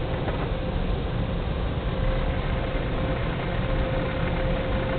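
Car engine running at low speed, heard from inside the cabin as a steady hum and rumble. A faint thin tone sounds on and off over it.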